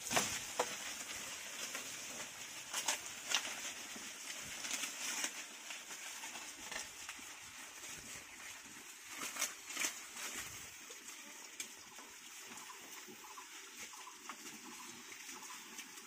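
Pigs feeding on green corn plants: crunching and chewing of the stalks with rustling leaves, sharp crackles bunched in the first few seconds and again around nine to ten seconds, then quieter.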